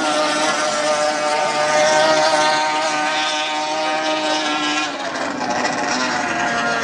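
Vintage racing powerboat's engine running at high revs with a steady, high note. About five seconds in, the pitch drops.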